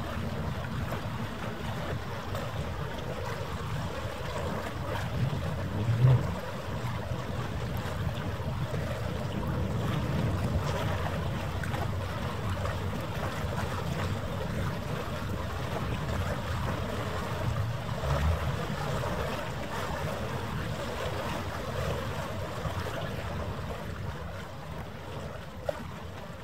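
Steady wind noise on the microphone over a harbour-water wash, with two brief low bumps about six and eighteen seconds in.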